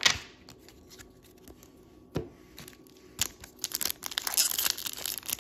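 A Topps foil trading-card pack being handled and torn open: crinkling and tearing of the foil wrapper, starting about three seconds in and getting denser toward the end. Before that come a sharp tap at the start, the loudest sound, and a softer thump about two seconds in.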